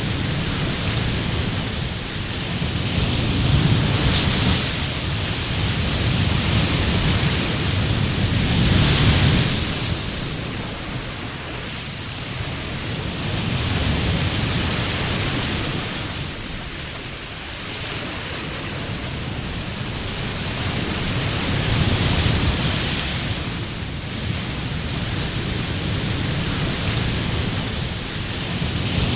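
Ocean surf: waves breaking and washing up the beach, the noise swelling and fading every five to eight seconds.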